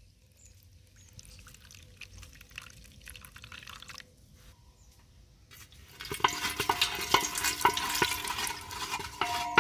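Faint handling sounds, then about six seconds in water starts being poured into a container, splashing steadily with a slight ringing tone, as water is added to the gola syrup.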